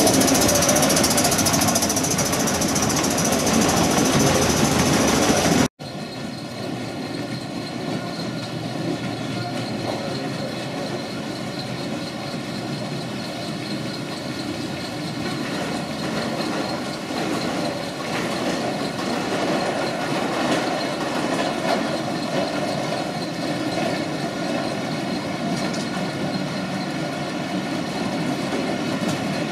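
Gauge 1 model trains running on the layout track: a steady rolling rumble of small wheels over rails and rail joints. A louder, hissier stretch breaks off abruptly about six seconds in, and a quieter, even running sound follows.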